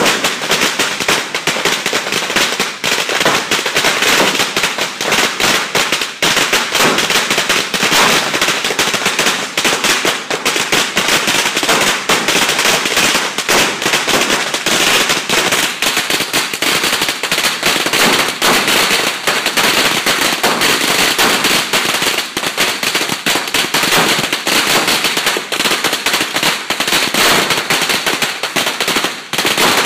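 A long string of firecrackers going off in a continuous rapid crackle of bangs and pops.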